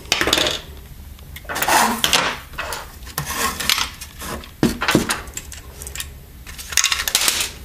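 Parts of a torn-down variable frequency drive being handled on a bench: the plastic casing and the metal heat-sink housing clink and clatter in about five short bursts.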